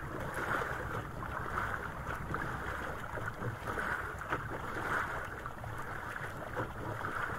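Wind on the microphone and water washing against a small outrigger boat at sea, a steady rushing noise over a low rumble, with a few faint knocks.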